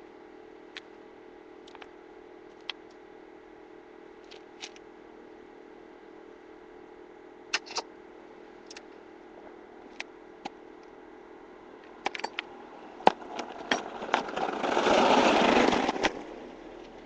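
Scattered metallic clicks and knocks of tools and parts being handled, then a loud, noisy whir of about a second and a half near the end, over a faint steady hum.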